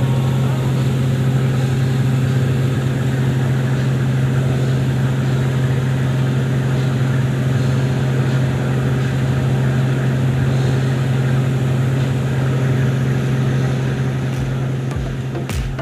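Ship's engine running under way with a steady low drone, over a rushing noise of wake water and wind.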